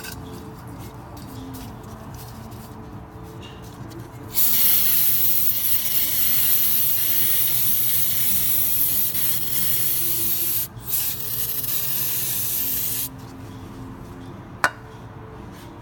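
A pressurised spray hisses steadily for about nine seconds, with a brief break partway, as the dirty forklift brake parts are cleaned. A sharp click follows near the end.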